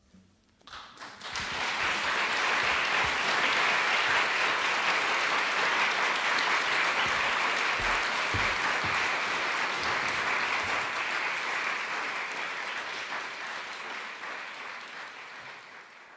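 Audience applauding. A few first claps come in just after the start, swell into full, steady applause within a couple of seconds, and fade out toward the end.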